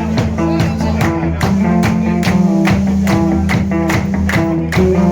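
Live band music with sustained pitched notes over a steady beat of about three strokes a second.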